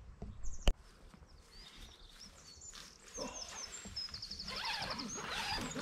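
Small songbirds chirping, with a quick trill in the second half. A single sharp click comes less than a second in, and there is soft rustling around the middle and near the end.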